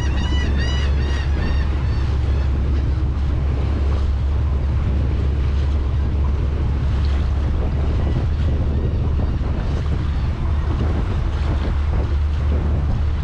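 Cobia 237 boat under way: heavy wind buffeting on the microphone over a steady low rumble and the rush of water past the hull. A short run of high chirping notes sounds near the start.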